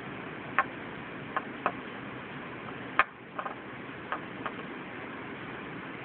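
Several sharp clicks and taps from a chrome Zippo lighter's metal case being handled and turned in the fingers, the loudest about three seconds in, over a steady background hiss.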